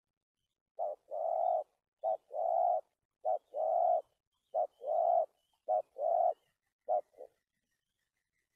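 Spotted dove cooing: a run of six paired coos, each a short note followed by a longer one, about a second apart, ending on a short note near the end.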